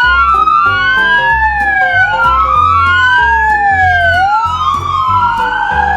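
Police car siren wailing: two tones sweep up and down in opposite directions, crossing each other every couple of seconds, over background music with a steady beat.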